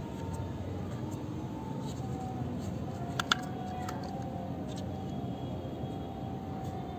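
Small clicks and knocks of plastic toy-car parts being handled, with one sharp click a little over three seconds in, over a steady low background rumble.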